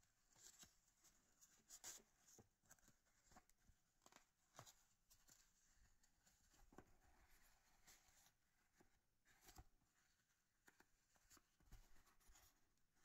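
Faint rustling and scratching of felt lampshade pieces being handled and slotted together, with scattered soft clicks.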